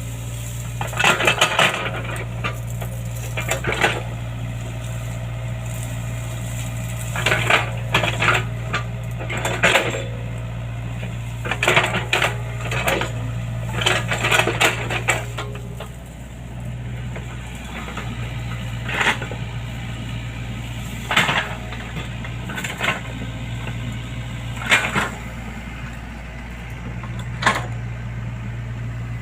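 Excavator engine running with a steady low hum, with bursts of metallic clanking and rattling from the working machine every few seconds.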